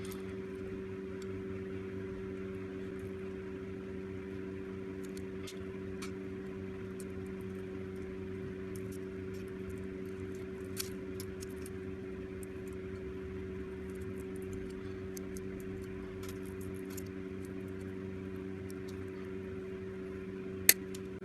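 Small side cutters nibbling and cracking brittle plastic off a tiny transformer: scattered faint clicks, with a sharp snap near the end. A steady low hum runs underneath.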